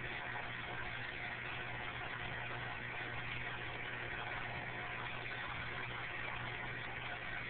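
Aquarium filter and pump running: a low steady hum under an even hiss of moving water.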